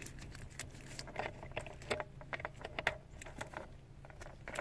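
Plastic wiring-harness connectors and bundled wires clicking and rattling lightly as they are handled and fitted to an F-body Camaro's body control module. Scattered small clicks, thinning out after about three seconds.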